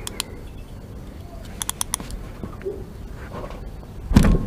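Ratchet wrench clicking in short quick runs as a socket works the oil drain bolt loose on a motorcycle crankcase. A louder dull thump comes near the end.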